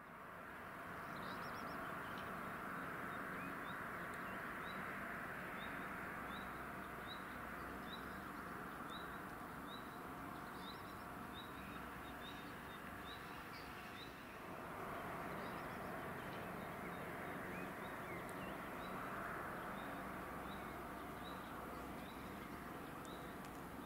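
Outdoor ambience with a steady low background noise, over which a bird repeats one short high chirp about every half-second, with a few other bird calls now and then.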